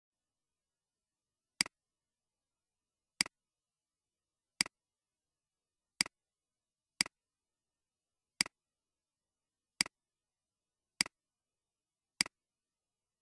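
Computer mouse clicks: nine sharp clicks at uneven intervals of about one to one and a half seconds, each a quick double tick of press and release, with dead silence between.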